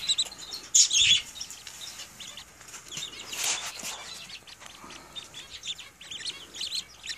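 Newly hatched ducklings peeping: many short, high peeps in quick runs, thicker near the end, with a brief rustle about a second in.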